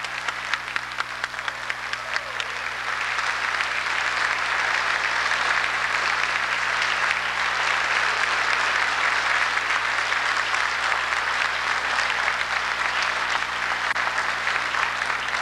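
Audience applauding: separate claps at first, swelling into full, dense applause about three seconds in, over a steady low hum.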